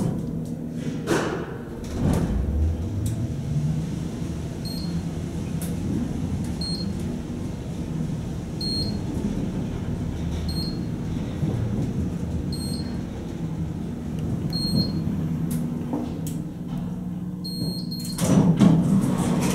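Kone traction elevator car travelling down, a steady hum from the ride with a tone rising about two seconds in as it picks up speed. Short high beeps come about every two seconds, one for each floor passed. The sound grows louder near the end.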